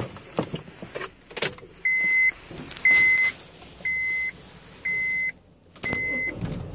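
Ignition key clicks and jingles, then the Honda Civic's dashboard chime beeps steadily, one high tone about once a second. Near the end the car's engine starts and runs with a low hum under the beeps.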